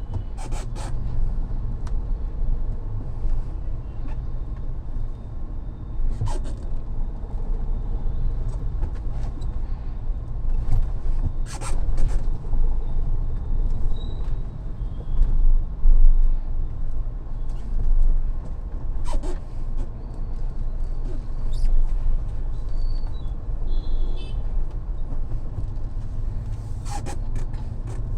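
Road and engine noise inside a Mahindra Thar's cabin on the move: a steady low rumble, with a sharp click every several seconds.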